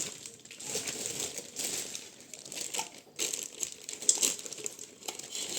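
Packaging being handled and crinkled: irregular crackling and rustling as hands rummage through the rice cooker's box contents.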